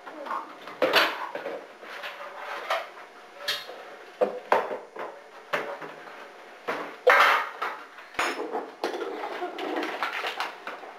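Kitchen utensils, bowls and pans clattering and clinking in an irregular string of separate knocks, as things for mixing are gathered and handled.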